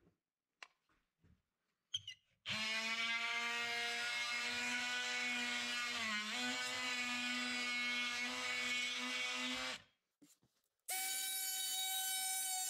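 Cordless oscillating multi-tool cutting through a plywood saw guide. After a couple of seconds of light handling clicks it runs with a steady buzz for about seven seconds, dipping briefly in pitch midway as the blade bites. It stops, then starts again about a second later with a higher tone.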